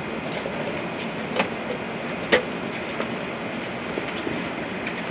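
Steady cabin noise of an Airbus A380-800 rolling on the ground after landing, heard from a window seat over the wing. It is broken by two sharp knocks about one and a half and two and a half seconds in, the second the louder, then a few faint ticks.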